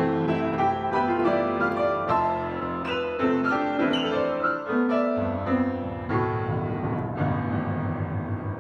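Piano music: a quick run of separate notes over several pitches, joined from about five seconds in by a steady low repeating figure.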